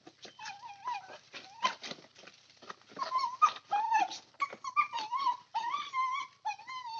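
Dogs whining in wavering high cries, more often from about three seconds in, with short sharp yips and clicks between; the eager whining of dogs hunting a rat.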